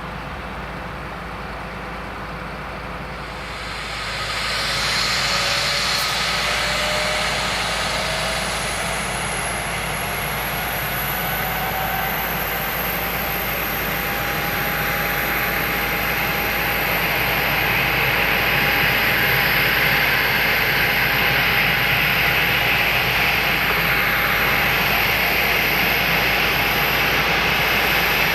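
Twin Rolls-Royce BR710 turbofans of a Gulfstream G550 business jet whining as it passes close. The sound swells about four seconds in and grows louder again later, with a thin high whine climbing in pitch and lower tones gliding upward.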